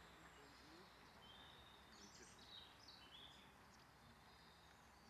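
Near silence, with a few faint high bird chirps around the middle.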